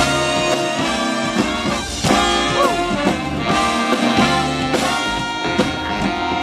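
Live swing band playing an instrumental passage with horns, held chords changing every second or so.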